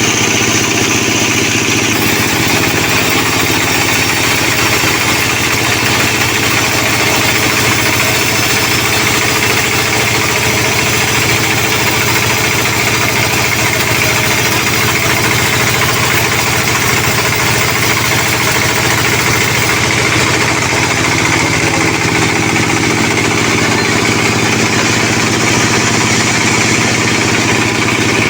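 Sawmill machinery running steadily with an unbroken engine drone at an even pitch.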